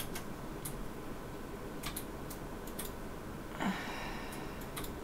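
Faint, irregular small clicks of hands working the yarn and needle while tying off a punch needle project, over low room noise, with one brief louder soft sound about three and a half seconds in.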